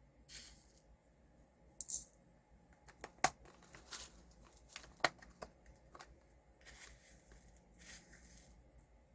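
Faint handling of small craft materials: a few sharp plastic clicks and several short papery swishes, like film or sticker backing being peeled and handled.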